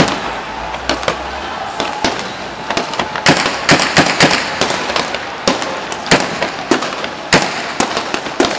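Gunfire: a string of about twenty sharp, irregularly spaced shots, thickest about three to four and a half seconds in, over a steady background din.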